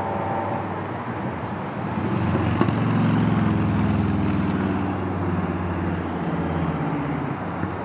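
A vehicle passing by outdoors: its low engine hum swells about two seconds in, peaks, and fades away after about six seconds over steady background noise.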